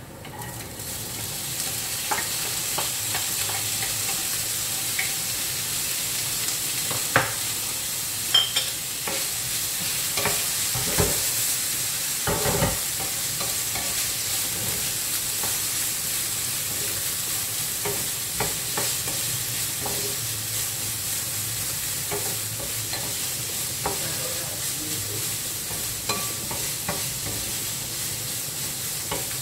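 Diced sausage, carrot and green beans hitting hot oil in a wok, starting a steady sizzle about a second in, then stir-fried with a wooden spatula that scrapes the pan, with a few sharper knocks against the wok.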